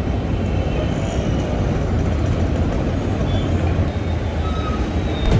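Steady street traffic noise with a low engine rumble from passing vehicles, heard through an open car window.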